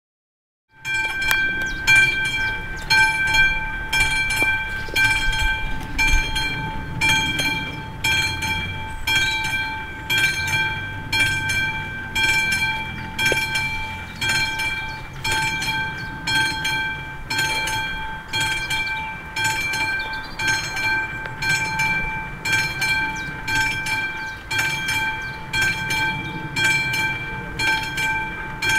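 Classic mechanical level-crossing warning bell of an AŽD 71 crossing, struck over and over in a steady, even rhythm from about a second in, each stroke ringing. It signals that the crossing is activated for an approaching train.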